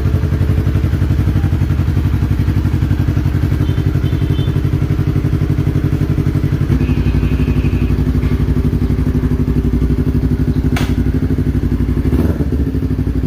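Yamaha R3's 321 cc parallel-twin engine idling through an Akrapovic M1 exhaust, a steady, evenly pulsing note. The note shifts slightly about seven seconds in, and two sharp clicks come near the end.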